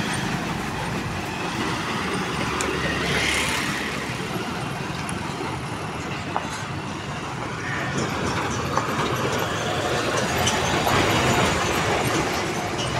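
Heavy diesel goods trucks driving past on a road, with steady engine rumble and tyre noise. It grows louder near the end as a truck passes right by.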